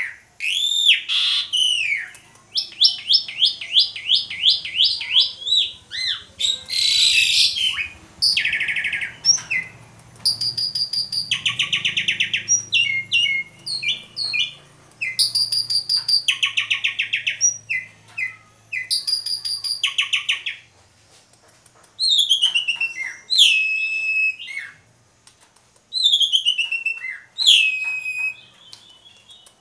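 Asian pied starling (jalak suren) singing a long, loud, varied song: clear rising-and-falling whistles, a quick run of repeated notes, stretches of harsh rasping rattles, and near the end several downward-sliding whistles.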